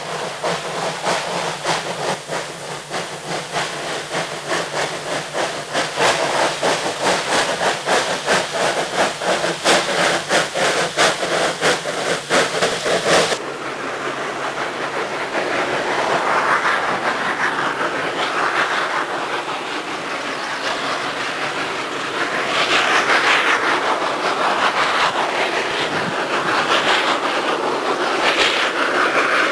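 A train running on rails: a rapid, even clickety-clack of wheels over rail joints for about the first half, which cuts off abruptly. A different rushing train noise follows and swells and fades several times.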